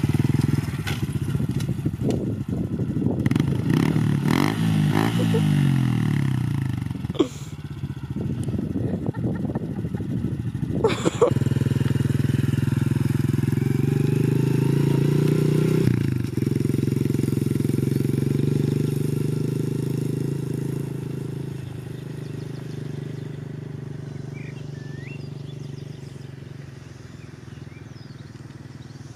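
Honda CRF110F pit bike's small single-cylinder four-stroke engine running as it is ridden, its note shifting up and down with the throttle, with two brief sharp knocks in the first half. Over the second half the engine fades steadily as the bike moves off into the distance.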